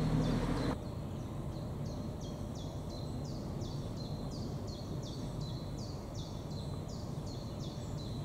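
Level-crossing electronic warning bell (AŽD ZV02) ringing steadily, about three short falling-tone strokes a second, over a low hum. A louder low rumble cuts off abruptly less than a second in.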